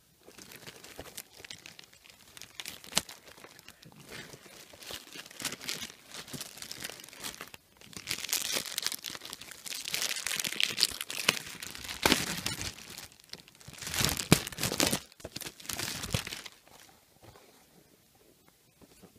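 Packing material crinkling and tearing as a package is unwrapped by hand: a run of crackling and rustling that grows louder in the middle and stops about three quarters of the way through.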